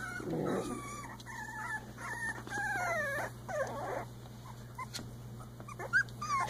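Three-week-old Icelandic Sheepdog puppies whining: a string of high, wavering whines that mostly fall in pitch, with a short rising one near the end.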